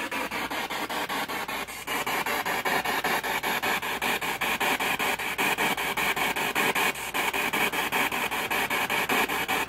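Spirit box sweeping through radio stations: a steady hiss of static chopped into a rapid, even pulse about ten times a second, growing a little louder about two seconds in.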